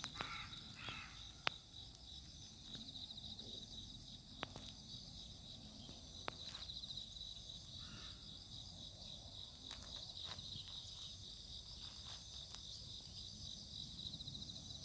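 Crickets chirping in a steady, faint, high-pitched chorus, with a few soft clicks and taps.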